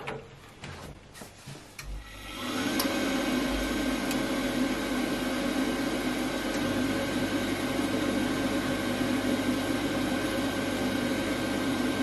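Glow-worm 24ci combi boiler starting up in central heating mode: about two seconds in, the circulating pump starts with a low hum, and the combustion fan spins up just after and runs steadily. This is the pre-purge stage, clearing the combustion chamber before the burner lights.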